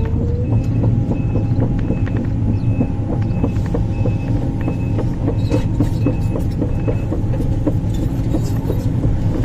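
Sumitomo 490 hydraulic excavator's diesel engine running steadily under load, its pitch rising just at the start, with clicks and clanks from the machine working. A short high beep repeats under twice a second and stops about seven seconds in.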